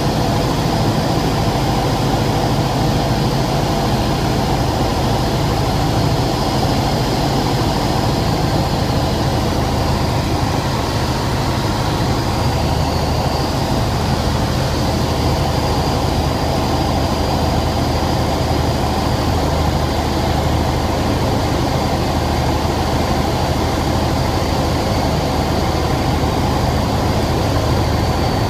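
Single-engine piston propeller plane's engine and propeller running steadily, heard from inside the cockpit on a landing approach, with a steady drone throughout; its low note shifts slightly about twelve seconds in.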